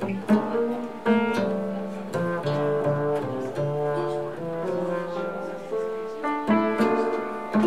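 Live jazz with an upright double bass played pizzicato in a flowing line of plucked notes, with a hollow-body archtop guitar comping chords alongside.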